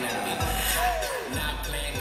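Bass-heavy dance-mix music with deep bass hits that drop in pitch, and a falling pitch sweep about a second in.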